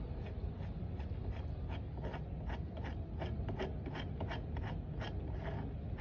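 Repeated metallic clicking, a few clicks a second, from hand tools working the fastenings of a Piper Seneca PA-34's main wheel assembly, over a steady low hum.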